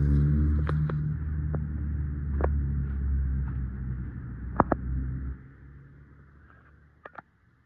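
A motor vehicle's engine running with a steady low rumble, which stops abruptly about five seconds in. A few sharp knocks sound over it and two more after it stops.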